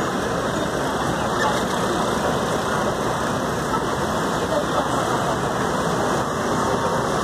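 Motor scooters running as they ride off a ferry's ramp onto the pier, heard within a steady, dense engine noise.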